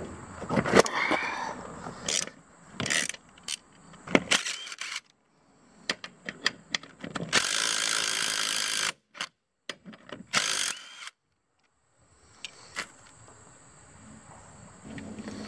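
Socket ratchet clicking as a wheel's lug nuts are worked loose. About seven seconds in, a cordless power tool runs on a lug nut for a little under two seconds, then runs again briefly about a second later.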